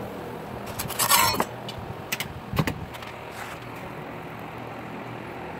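A steady low background hum, broken about a second in by a short, loud burst of noise, followed by a few light knocks.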